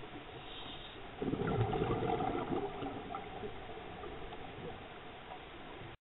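Scuba regulator exhaust bubbles heard underwater: a steady hiss, then about a second in a burst of bubbling from a diver's exhalation that eases off over a few seconds. The sound cuts off abruptly near the end.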